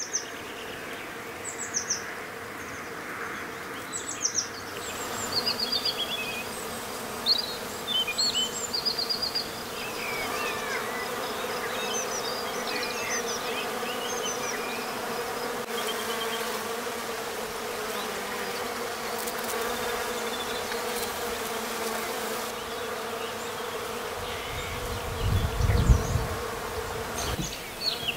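Bees buzzing in a steady drone as they forage on cherry blossom, with small birds chirping in short high calls throughout. A brief low rumble comes near the end.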